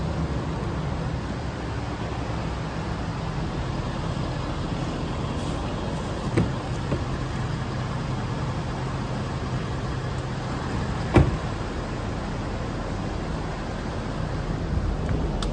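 Ford F-250's 6.7-litre Power Stroke V8 turbodiesel idling steadily, with two short sharp knocks about six and eleven seconds in.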